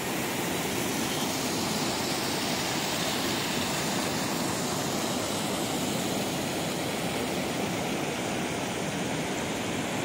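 Steady rush of fast-flowing water, a swollen river and its runoff pouring over rocks, an even hiss at one level throughout.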